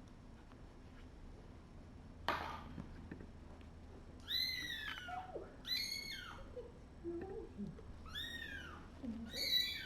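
Young kittens, about three weeks old, meowing: four high, arched cries starting about four seconds in. A brief rustle comes before them.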